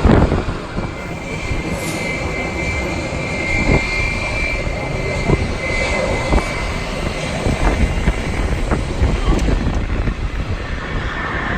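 Jet airliner engines running, with a steady high whine for the first half or so, over rumbling wind noise on the microphone.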